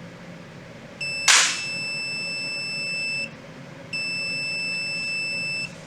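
Meter beeping: two long, steady, high-pitched beeps of about two seconds each. A sharp click comes just after the first beep starts, over a low background hum.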